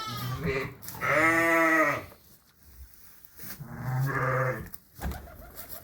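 Dorset sheep bleating in the barn: two wavering bleats, each about a second long, about three seconds apart. A soft knock comes near the end.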